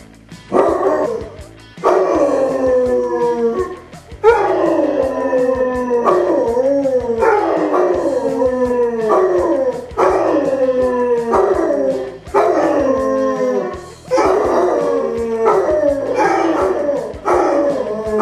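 Two basset hounds howling together in long, wavering howls that fall in pitch. A new howl starts every second or two, and the two dogs' voices overlap.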